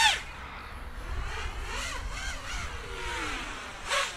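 FuriBee DarkMax 220 racing quadcopter's brushless motors and propellers whining in flight on a 4S battery, the pitch rising and falling with the throttle. A loud blip right at the start, a softer wavering whine, then another short surge near the end.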